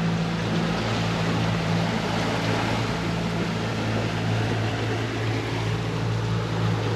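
Boat motor running steadily underway, a constant low hum over an even hiss of water and wind.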